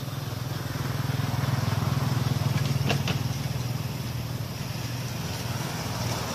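Motor vehicle engine running, a steady low hum that swells about two to three seconds in and then eases off, as of a vehicle passing by.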